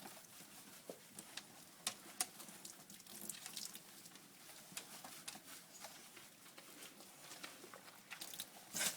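Hands working shampoo into a wet dog's coat: faint wet rubbing with scattered small clicks and pats.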